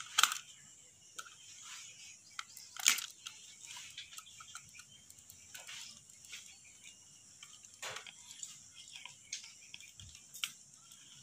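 A small screwdriver tightening terminal screws on a plastic switch board: scattered faint ticks and scrapes of metal on screw heads, with three sharper clicks, about once at the start, near three seconds, and near eight seconds.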